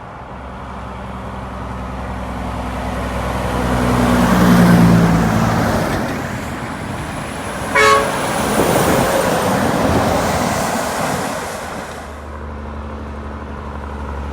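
A heavy vehicle passes by: engine and road noise build up, peak about four to five seconds in, then fade. A short horn toot sounds about eight seconds in. From about twelve seconds in, a low steady engine rumble is left.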